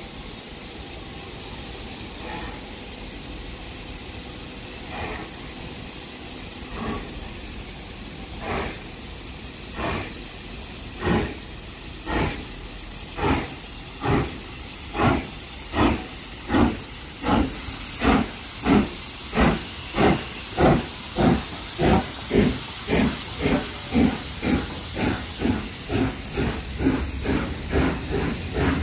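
Steam locomotive 46100 "Royal Scot", a three-cylinder LMS Royal Scot class 4-6-0, pulling away from a stand. Its exhaust chuffs quicken from about one every two seconds to about two a second, over a steady hiss of steam that grows louder about two-thirds of the way through.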